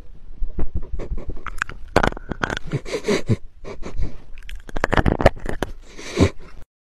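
A dachshund-type dog sniffing and snuffling at a handheld microphone held against its nose, heard very close as a string of sniffs with bumps and scrapes where its nose touches the mic. The sound cuts off abruptly near the end.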